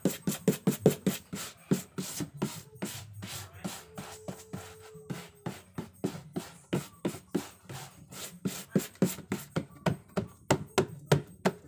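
Brush dabbing and stroking cement-sack paper onto a carved wooden barongan head: a quick, irregular run of dry strikes, about three or four a second.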